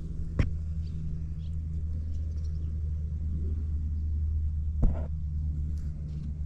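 Suzuki Hi 50cc two-stroke scooter engine with an aftermarket coiled expansion chamber, idling steadily. Two short clicks come through, one about half a second in and one near five seconds.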